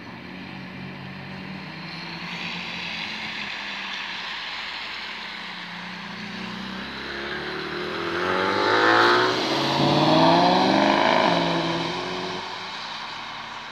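BMW E46 M3's straight-six engine pulling past at low revs, then revving hard with a rising pitch as the car accelerates away. It is loudest around eight to eleven seconds in.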